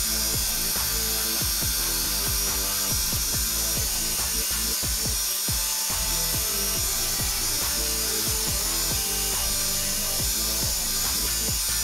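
Bench grinder's spinning wire wheel scrubbing rust off metal water pump parts held against it, a steady scraping hiss, with background music.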